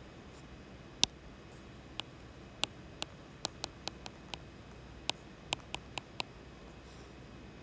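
A stylus tapping and writing on an iPad's glass screen: about a dozen short, sharp taps at an uneven pace, bunched more closely in the middle, over a faint steady hum.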